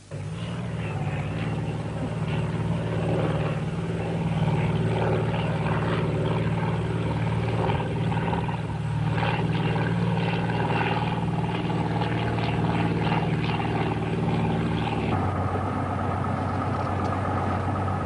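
Single-engine light aircraft's engine and propeller droning steadily in flight. About three quarters of the way through, the drone changes to a different, steadier note, as heard from inside the cabin.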